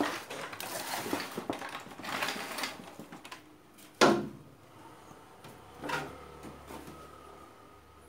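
Handling noise of a CRT TV being put back together: rustling and clattering of the circuit board and plastic back cover, with a sharp knock about four seconds in and a smaller one about two seconds later.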